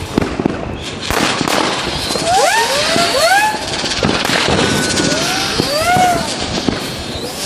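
Fireworks going off thick and fast: many overlapping whistles rising and falling in pitch over a continuous crackle of firecrackers and bangs.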